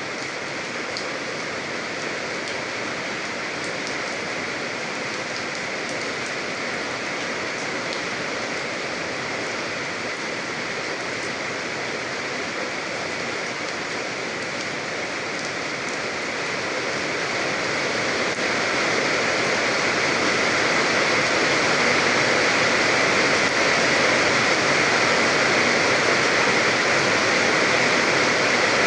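Steady rain falling, an even dense hiss with a few distinct drop ticks in the first half; it grows a little louder from about 16 s in and then holds steady.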